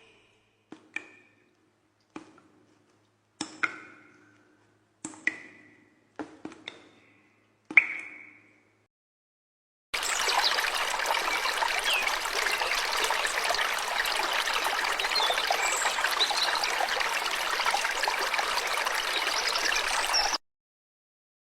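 Water drops plopping one at a time, about a second apart, each a short ringing plink, for about nine seconds. After a pause, a steady stream of running water starts and runs for about ten seconds, then cuts off suddenly.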